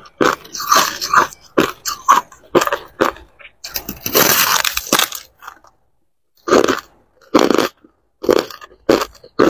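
Teeth biting into and crunching a block of packed white crushed ice: a run of sharp crunches about once or twice a second, a longer crunch around four seconds in, a brief pause, then steady crunching again.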